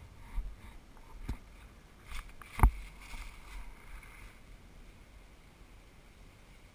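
Three sharp knocks over the first three seconds, the loudest near the middle, with faint rustling between them.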